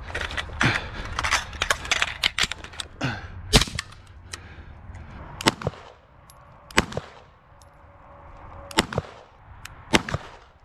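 Gunshots from a firearm fired in the dark: a quick string of shots in the first few seconds, then four single shots spaced about one to two seconds apart.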